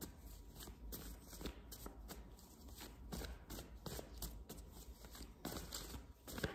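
Faint hand-shuffling of a tarot deck: soft, irregular flicks and taps of the cards.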